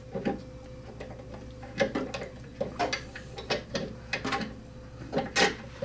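Irregular metal clicks and knocks from the removable winding crank of an Edison C-150 disc phonograph being fitted into the side of the wooden cabinet to wind its spring motor.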